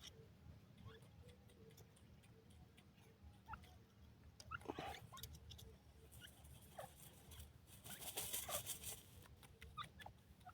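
Grey francolin chick giving faint, short peeps that drop in pitch, scattered every second or two, with a louder scratchy rustle about eight seconds in.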